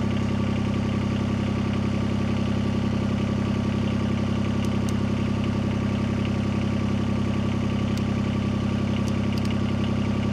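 Diesel engine of a Yanmar compact tracked machine idling steadily, with a few faint clicks in the second half.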